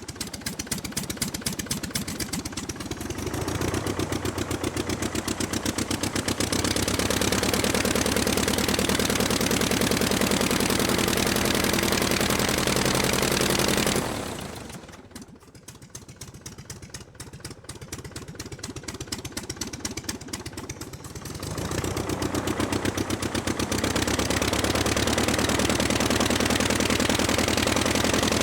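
Aircraft piston engine running on the ground with the throttle worked up and down. It idles with separate firing beats, speeds up to a steady higher power about four seconds in, drops back to a slow idle about halfway through, and speeds up again a few seconds before the end.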